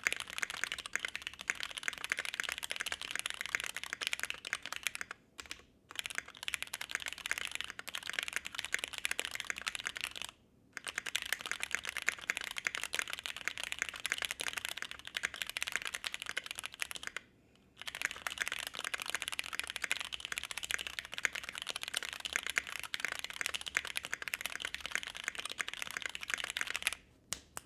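Fast typing on a mechanical keyboard: Gateron Ink Black switches in a KBDFans Blade60 aluminum case with PE foam and tape mods, under EPBT Black Cherry-profile keycaps. A dense stream of keystroke clacks with three short pauses, ending in a few separate key presses.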